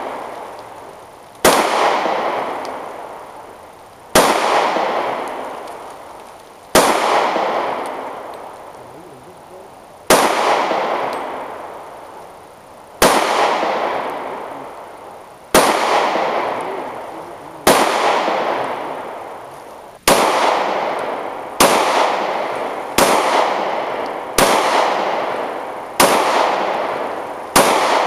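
Gunfire: about thirteen single shots, one every two to three seconds at first and quicker toward the end, each trailing off in a long echo.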